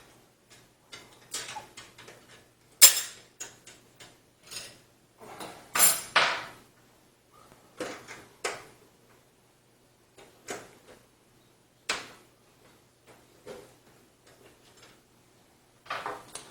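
Scattered metallic clicks and clinks as a screw is undone and a metal PCI slot cover is worked out of a PC case, with the loudest clinks about three and six seconds in.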